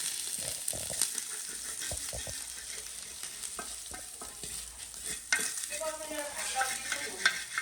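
Ginger and garlic sizzling in hot fat in a pan on a gas stove, stirred with a spatula that clicks and scrapes against the pan now and then.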